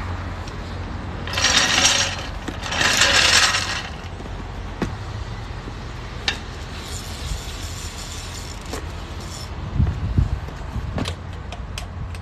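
A jack being let down under a truck: two short hisses about a second apart, then a fainter, longer hiss, with scattered metal clicks and clinks of tools over a steady rumble of wind on the microphone.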